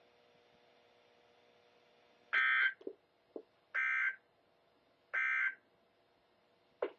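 EAS end-of-message data bursts from a NOAA Weather Radio broadcast: three short, loud, buzzy digital bursts about a second and a half apart, starting about two seconds in, marking the end of the Required Monthly Test. A few short low clicks fall between the bursts and one near the end, over a faint steady hum.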